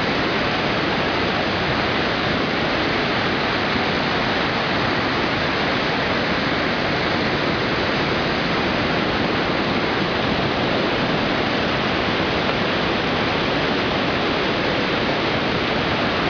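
Loud, steady rush of water pouring through a flood spillway.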